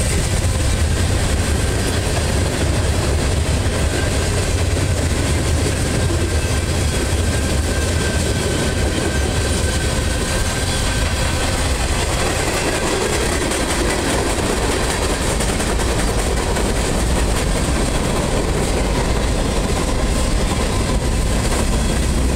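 Freight cars of a passing train rolling by at close range: a steady rumble of steel wheels on the rails.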